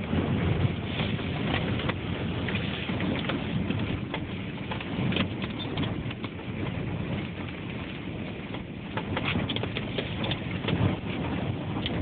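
Blizzard wind gusting hard against a parked truck, a dense rushing noise that swells and eases, with many crackling hits of wind on the phone's microphone.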